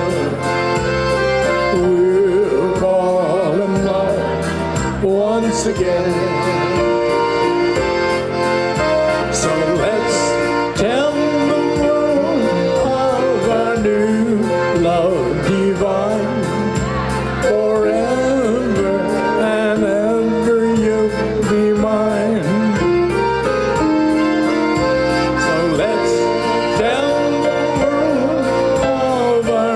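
Live polka band music: an accordion carries the melody over keyboard accompaniment and a steady oom-pah bass beat.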